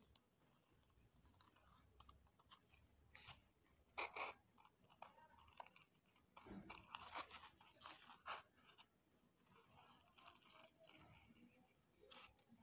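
Faint scissor snips cutting round a circle in a glitter sheet, in short, irregular crunchy cuts, the loudest about four seconds in.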